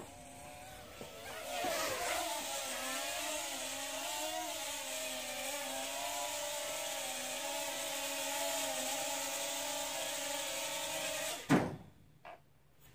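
Mini quadcopter's small motors and propellers buzzing steadily, their pitch wavering a little as the throttle shifts. The buzz cuts off with a click near the end.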